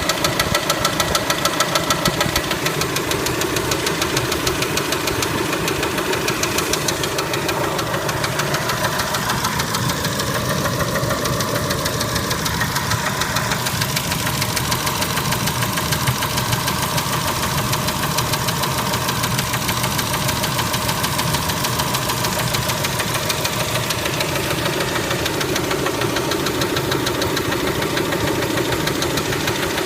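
Kia Spectra engine running with a fast, even knock.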